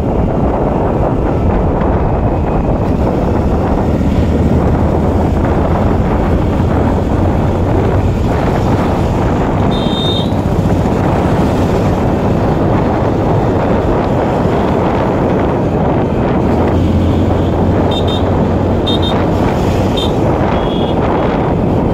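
Loud wind buffeting the microphone of a moving motorcycle, over the steady low hum of its engine. A few short high beeps come in about halfway through and again near the end.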